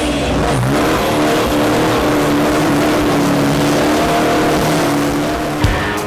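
A car engine held at high revs with its wheels spinning in a smoky burnout; the revs dip and pick up again about half a second in, then hold steady over the hiss of the spinning tyres. Rock guitar music comes in near the end.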